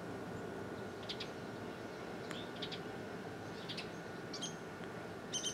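Quiet outdoor backdrop with a few faint, scattered bird chirps. Near the end a bird starts a fast, even, high trill.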